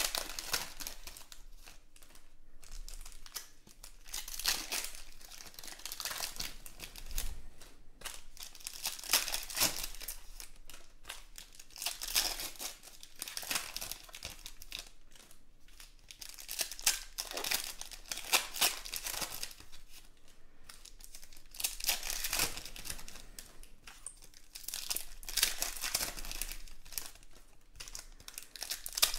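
Foil trading-card pack wrappers crinkling and tearing as packs are opened by hand, in irregular bursts every second or two.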